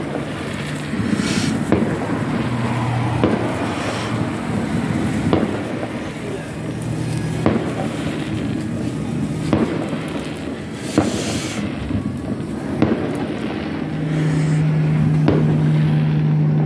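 Distant fireworks going off, sharp bangs every second or two at irregular intervals. Near the end a steady low hum from a vehicle engine comes in louder.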